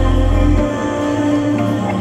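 Background music of slow, sustained tones over a deep bass note that changes about a third of the way in.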